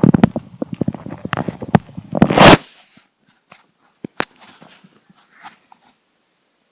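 Empty, hungry stomach gurgling and rumbling in quick bubbling pops, ending about two and a half seconds in with a loud noisy rush. Then a few scattered clicks and faint rustling, dying away to silence.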